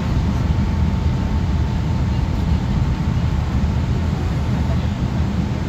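Airliner cabin noise: a steady low rumble of engines and air, with a faint steady hum above it.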